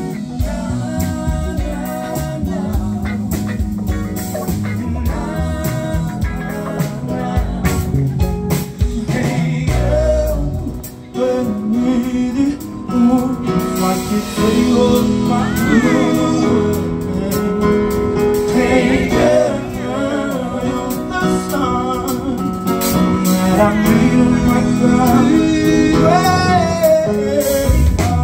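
Live band playing a song on guitar and keyboard with a rhythm section, and a singer's voice carrying the melody through much of the second half.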